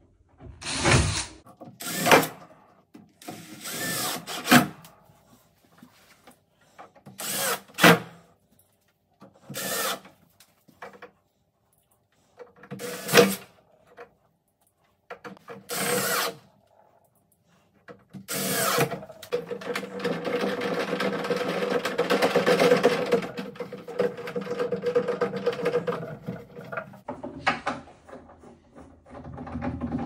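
Cordless drill/driver driving small screws to fix the cabinet's metal leg fittings, running in about nine short bursts, then one longer continuous run about two-thirds of the way in.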